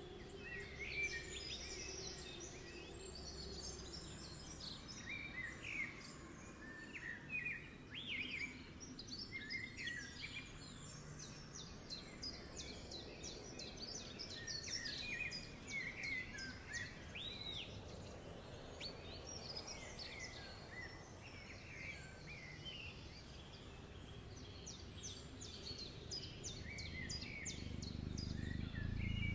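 Several small birds chirping and singing in quick short calls throughout, over a low background rumble that grows louder near the end.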